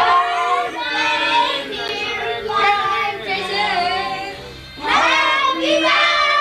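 A group of people singing together, a child's voice loud among them; the singing dips briefly about four and a half seconds in, then picks up again.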